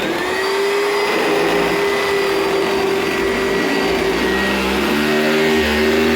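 Oreck Hypo-Allergenic Plus XL2 upright vacuum switched on: the motor spins up at once and runs loud and steady with a whine. About four seconds in, a second, lower drone and a low rumble join in. The noise comes from worn-out brush roll bearings.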